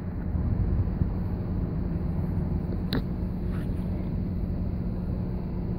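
Steady low rumble with a constant hum from a large sailing cruise ship's engines as it gets under way. There is a short sharp click about three seconds in.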